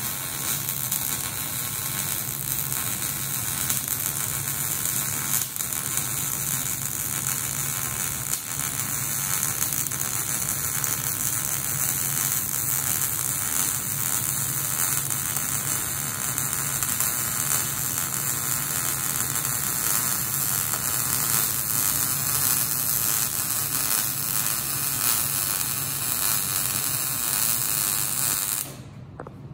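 Miller MIG (gas metal arc) welder's arc running steadily as a fillet bead is laid along a steel T-joint, then cutting off abruptly about a second before the end. It is running at a setting the welder judges a little too low: he says the machine could have been turned up.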